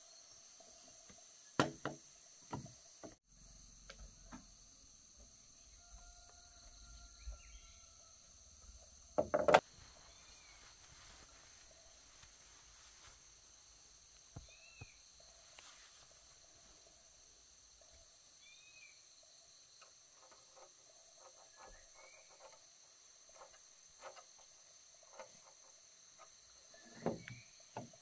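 Insects droning steadily in a high, even chorus, with scattered knocks and clicks, the loudest a short cluster about nine seconds in.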